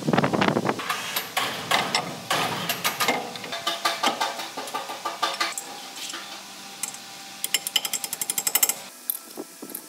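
Steel tools knocking and clanking on a wheel loader's steel wheel hub, a busy string of sharp metallic knocks, then a fast rattling burst of about a second and a half near the end.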